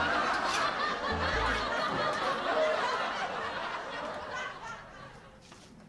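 Canned audience laughter, loud at first and dying away over about five seconds, with a short bass-heavy music sting near the start.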